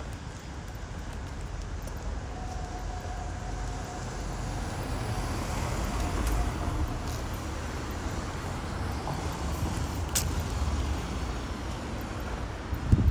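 City street traffic: a steady low rumble of vehicles, with a faint steady tone from about two to seven seconds in and a single sharp click about ten seconds in.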